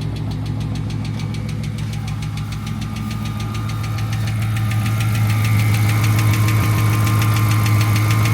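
Dodge Scat Pack's 392 HEMI V8 idling with a fast, even ticking from the top end, which the owner takes for a bad lifter. The engine gets louder about halfway through.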